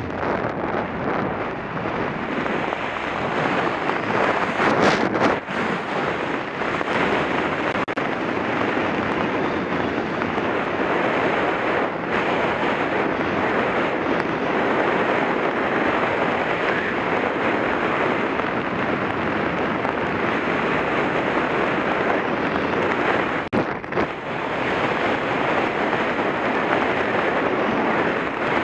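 Airflow rushing over the microphone of a helmet-mounted camera during flight under an open parachute, a steady rushing noise with a brief louder gust about five seconds in.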